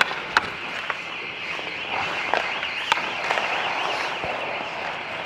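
Ice hockey play: skate blades scraping the ice under a steady hiss, with a few sharp clacks of sticks and puck, one near the start and one about three seconds in.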